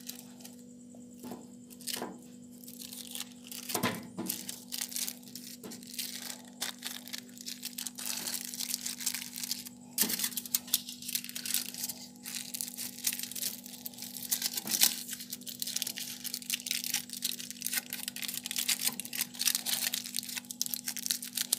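Aluminium foil crinkling and crackling as it is folded by hand around small pieces of chocolate, densest through the second half, with a few knocks in the first seconds. A steady low hum runs underneath.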